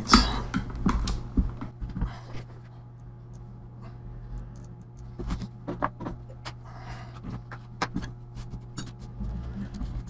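Scattered light clicks and taps of hands handling a laptop's plastic palm rest and internal parts, over a steady low hum, with a brief rushing noise at the very start.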